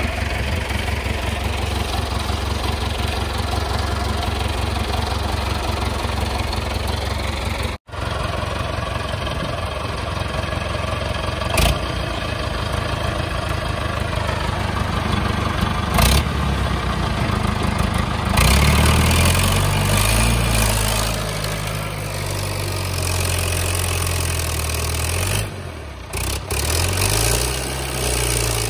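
David Brown 995 tractor's three-cylinder diesel engine running steadily. After about two-thirds of the way through it revs up and down repeatedly as it pulls a trailer loaded with firewood through soft dirt. Two sharp knocks come in the steady part.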